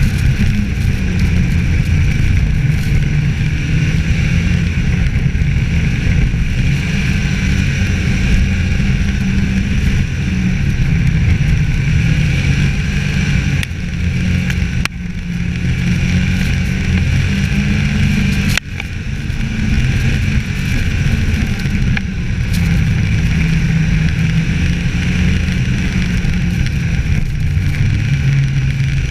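Snowmobile engine running at speed along a snow trail. The engine eases off briefly twice about halfway through, then picks up again.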